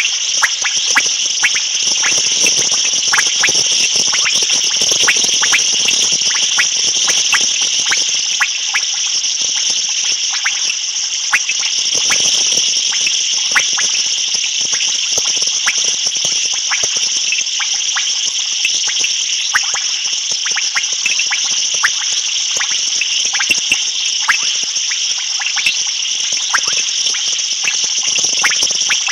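A steady, high-pitched chorus of night-calling animals, with many short clicks scattered through it.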